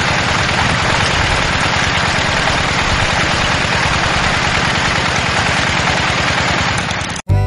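Small diesel engine running steadily at a fast, even beat, driving a mini water pump, with the pumped water splashing from the outlet pipe onto gravel. The sound cuts off suddenly near the end, and music begins.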